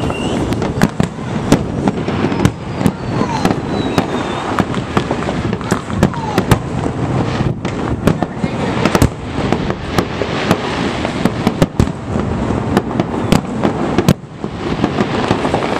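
Fireworks display: aerial shells bursting in a rapid, irregular string of sharp bangs over a steady din. The bangs let up briefly near the end.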